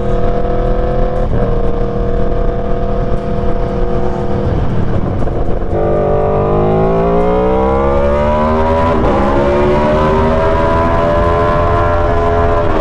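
Aprilia Tuono V4 Factory's 65-degree V4 engine, loud through an SC Project GP22 exhaust, pulling steadily with a quick gearshift about a second in. From about six seconds in it accelerates hard, revs climbing, with a shift near nine seconds and the revs rising again as it enters a road tunnel near the end.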